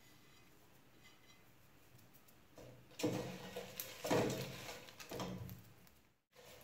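A wooden spoon stirring dried guajillo and morita chiles and shrimp shells toasting in an aluminium pot: three strokes about a second apart, starting about three seconds in after a faint start.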